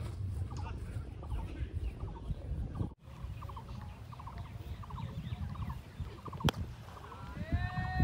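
Birds chattering in quick repeated bursts over a low wind rumble. One sharp crack comes about six and a half seconds in, a cricket bat striking the ball. Near the end there is a short call that rises and then falls.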